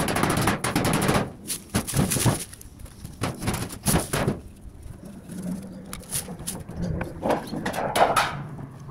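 Colorbond steel box gutter sheet being pressed down and stepped on: a rush of clattering for the first second or so, then scattered sharp clicks and knocks as the metal flexes and pops, and another rattle near the end.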